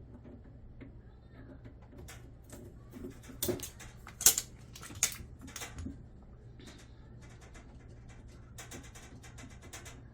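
Work on a drum washing machine during bearing replacement: sharp clicks and clinks of tools and parts being handled, with a few louder knocks about three and a half to six seconds in and bursts of quick rattling clicks near the end, over a low steady hum.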